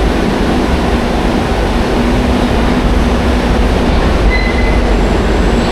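A train running: a loud, steady rumble and rattle with a low hum, and a brief high squeal about four seconds in.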